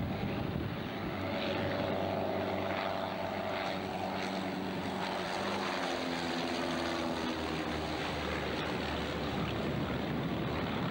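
Propeller-driven biplanes flying low past, their piston engines droning. The engine note falls in pitch as they go by, about halfway through.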